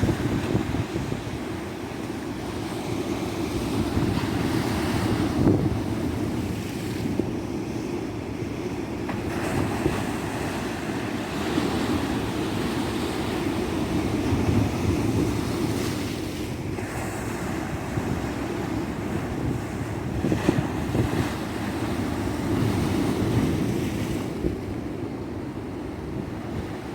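Sea waves breaking and washing up a tropical beach, the surf swelling and easing every few seconds, with wind on the microphone.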